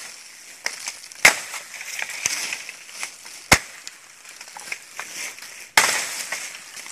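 Dry bamboo leaves and stalks crackling and rustling as someone moves and works among them, with four sharp cracks spaced one to two seconds apart; the loudest come about a second in and near the middle.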